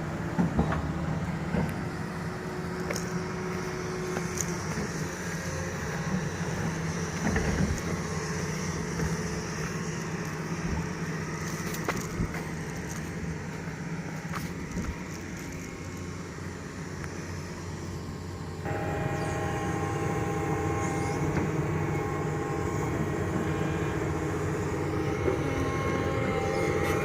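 Doosan DX225LCA excavator's diesel engine running steadily under work. About two-thirds of the way in it suddenly gets louder, with a steady whine on top.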